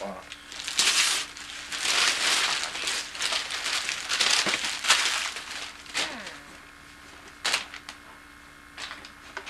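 Paper crinkling and rustling as a present is unwrapped, loud and busy for the first several seconds, then quieter with a few short crackles near the end.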